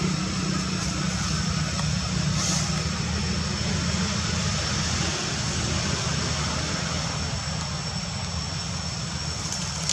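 Steady low rumble, even throughout, with a thin steady high-pitched whine above it and no distinct events.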